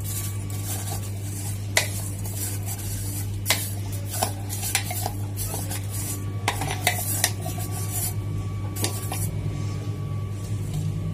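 A steel spoon scraping and clinking against a stainless-steel mixer-grinder jar and steel plate as ground dry coconut is scooped out, with scattered sharp clinks over a steady low hum.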